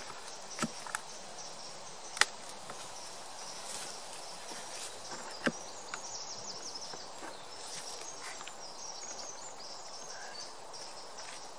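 Sharp clicks and cracks of a hive tool prying at a wooden hive's metal-clad roof, stuck down with propolis, the loudest about two seconds in. A few further clicks follow over a steady outdoor background.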